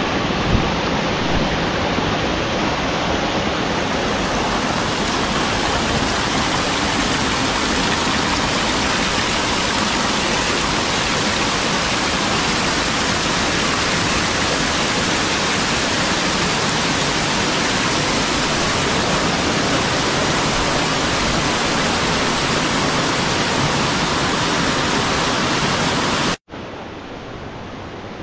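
Waterfall rushing steadily, an even wash of falling water with two brief knocks at the very start. About 26 seconds in it cuts off abruptly, and a quieter, similar rush of water carries on.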